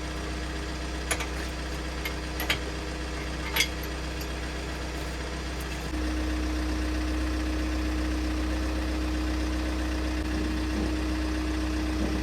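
Manitou telehandler's diesel engine running at a steady idle with a few sharp clicks, then revving up to a higher steady speed about six seconds in.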